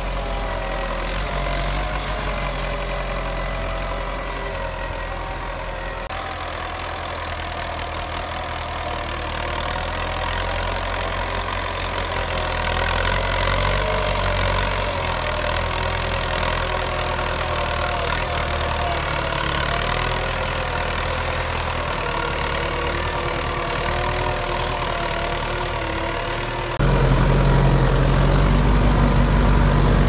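1994 Belarus MTZ-82 tractor's four-cylinder diesel engine running steadily under load, pulling a three-furrow plough through hard, dry soil. About three seconds before the end it turns suddenly louder and deeper, heard from close by the exhaust stack.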